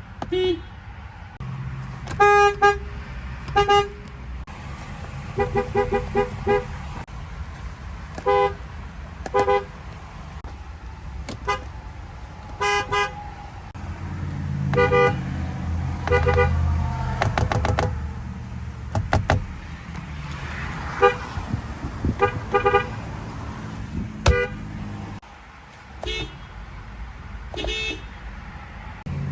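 Car horns sounding one after another in short toots and quick runs of three or four beeps, at more than one pitch. Under them is a low engine rumble that grows loudest about halfway through.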